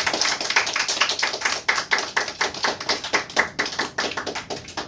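A small audience clapping at the end of a song, individual claps distinct, thinning out near the end.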